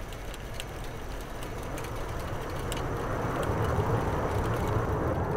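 A rumbling, hissing noise swell that grows steadily louder, with faint scattered ticks through it.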